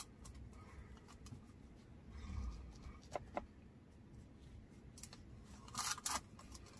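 Foam sponge brush dabbing and wiping sealer onto an air-dry clay spoon rest: soft scratchy taps and rubs. The taps are louder just before the end.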